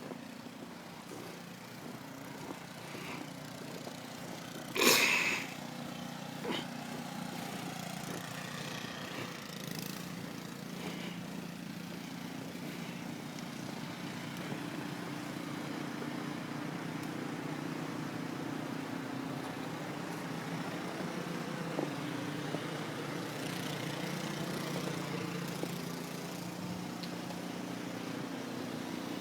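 An engine running steadily, with a brief loud noise about five seconds in.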